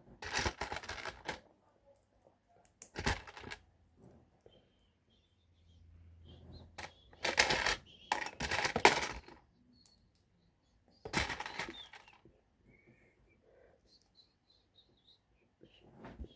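Loose LEGO plastic pieces clattering as they are rummaged through and handled, in several short bursts with quiet gaps between.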